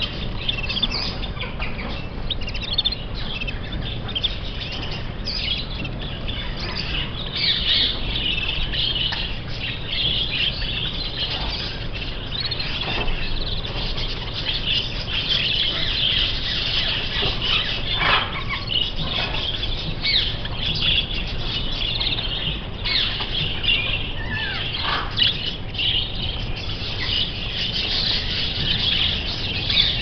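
Many caged canaries and finches chirping and twittering at once, a dense steady chatter with occasional sharper falling calls.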